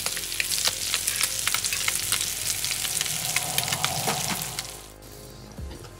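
Coated squid rings shallow-frying in oil in a frying pan, a steady sizzle with many fine crackles that fades away about five seconds in.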